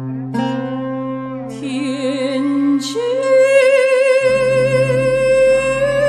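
Chinese and Western chamber ensemble playing live: a slow melody of held notes with vibrato over a sustained low bass note, with plucked-string notes. The bass note changes about four seconds in.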